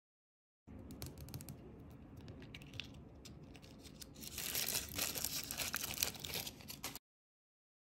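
A small soft plastic toy shell handled and opened with scattered small clicks, then from about four seconds in a printed toy wrapper crinkling loudly as it is unwrapped by hand.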